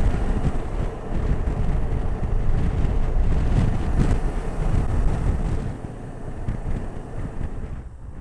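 Wind buffeting the microphone of a moving motorcycle, a dense low rumble that eases off in the last couple of seconds.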